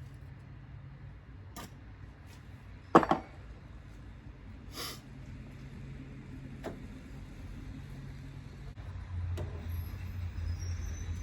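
Hand tools clinking and tapping as wrenches are sorted and tried on a fitting, with a louder double knock about three seconds in, over a steady low hum.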